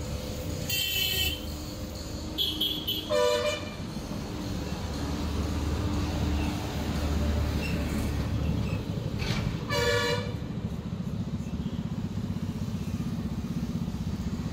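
Motor vehicle traffic: engines running with a low rumble, and several short horn toots, the loudest about three seconds in and about ten seconds in.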